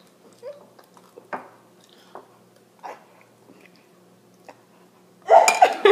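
Someone chewing a mouthful of cereal, with a few faint sharp clicks spaced out over several seconds. A loud burst of voice breaks in near the end.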